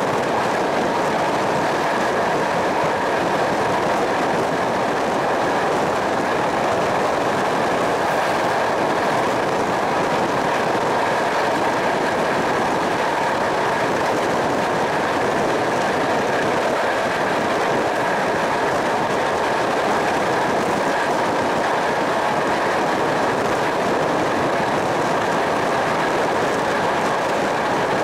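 Passenger train running steadily along the track, heard at an open coach window: a constant rumble of wheels on rail and rushing air, with a faint steady whine over it.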